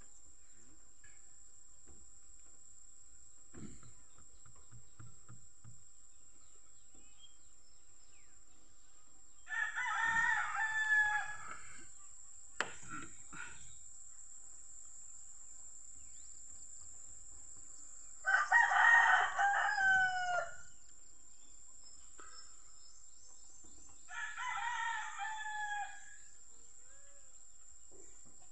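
A rooster crowing three times, each crow about two seconds long, the last one fainter. There is a single sharp click shortly after the first crow.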